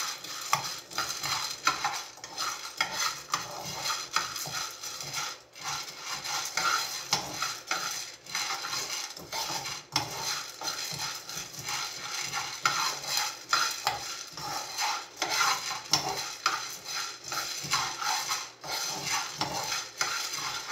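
Green coffee beans rattling and scraping against a frying pan as they are stirred without pause with a spoon, early in a stovetop pan roast before the beans have browned. A dense, irregular scratchy clatter of many small clicks.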